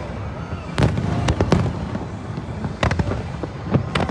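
Aerial fireworks going off: a string of sharp bangs and pops, clustered about a second in and again around three to four seconds, over a continuous low rumble and crackle of the display.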